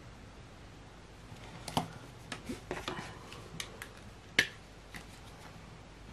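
A run of small clicks and taps from a ballpoint pen being set down on a spiral planner and a plastic highlighter being picked up, with one sharp click about four and a half seconds in.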